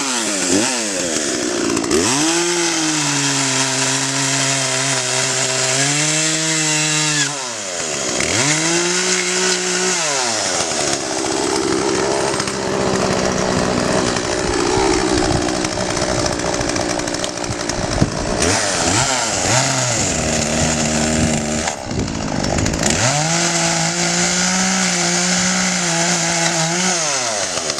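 Poulan P3816 38 cc two-stroke chainsaw running, revved up and down several times between a low idle and high throttle. Through the middle stretch the pitch goes rough and unsteady, then it holds a steady high rev near the end.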